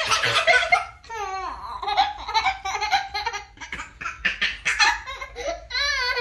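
A young child laughing hard in repeated high-pitched peals, some sliding down in pitch.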